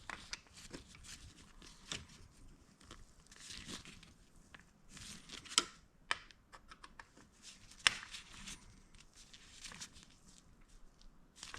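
Hand work on the engine: scattered small clicks and rustling as parts and tools are handled, with two sharper clicks a little past the middle.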